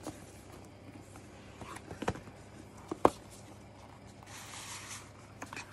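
Cardboard projector box and its packaging being handled: a few light knocks about two and three seconds in, the sharpest just after three, then a soft scraping rustle as a cardboard sleeve slides out of the box.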